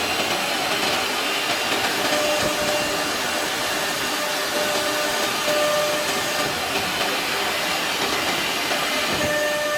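1325 CNC wood router running: a steady rushing machine noise with faint whining tones that come and go.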